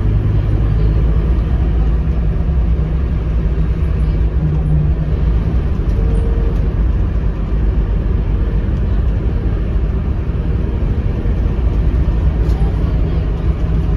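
Interior sound of a Scania K230UB city bus on the move: a steady low rumble from its diesel engine together with road noise, with the engine note stepping in pitch now and then.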